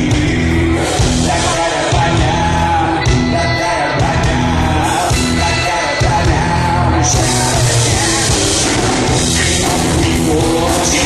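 Live reggae-rock band playing loudly: electric guitar, electric bass and a drum kit, with a man singing at the mic. The high cymbal wash grows brighter about seven seconds in.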